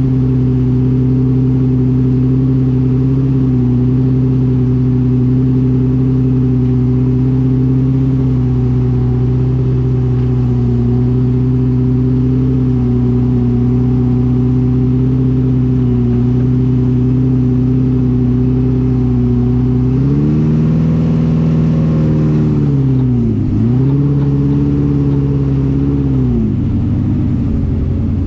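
Engine of an FJ40 buggy heard from inside the vehicle, running at steady revs for most of the time. Near the end it revs up, drops sharply, picks up again and falls off.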